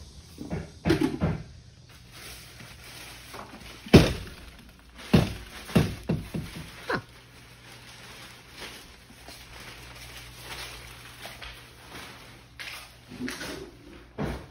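Footsteps and knocks from someone walking in through a door across a plastic-sheeted floor, with the loudest thump about four seconds in and a few more over the next three seconds. After that a steady low hum runs underneath.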